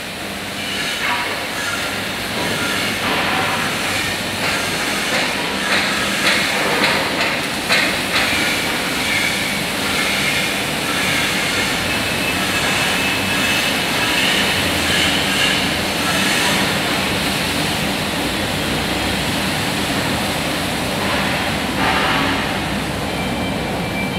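Factory workshop noise: machinery running with a steady hum, and frequent metal clanks and knocks, busiest in the first several seconds.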